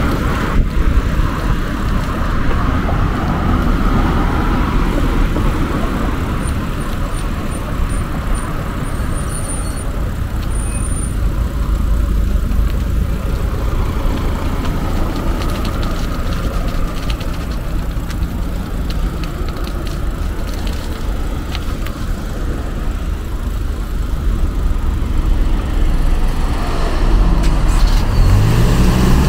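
Road traffic: cars passing on a city road in a steady rumble, with a vehicle's engine rising in pitch as it accelerates near the end.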